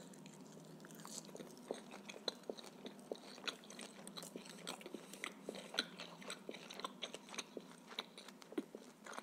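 Close-miked chewing of a mouthful of grilled shashlik meat, with many small irregular mouth clicks and smacks.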